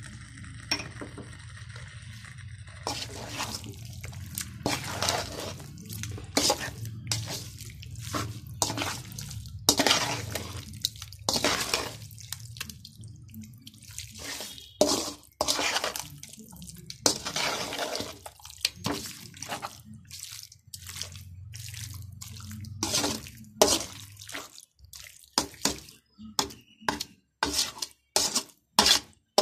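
A perforated metal spoon stirring and scraping chicken and ground masala around a metal pot in repeated wet strokes, which get quicker and more even near the end. A low steady hum runs underneath and fades near the end.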